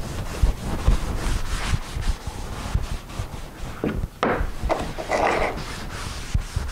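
Foam applicator pad rubbed back and forth along the base of a homemade circular-saw track guide: repeated swishing strokes, a few louder ones past the middle.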